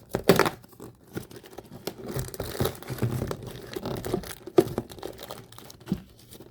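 A cardboard advent calendar door being torn open and the packaged marshmallow pulled out: a sharp tear about a third of a second in, then scattered rustling and handling of cardboard and packaging.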